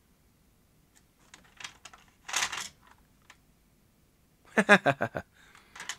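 Light clicks from handling the open Grundig V2000 video recorder and its cassette. A short noisy rustle comes about halfway through, and a brief burst of voice follows near the end.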